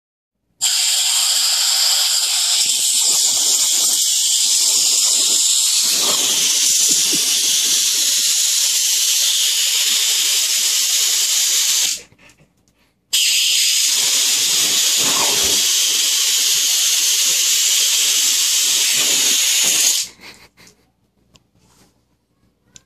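Compressed air hissing steadily out of a nozzle in two long blasts. The first lasts about eleven seconds; after a pause of about a second, the second runs about seven seconds and cuts off sharply about twenty seconds in.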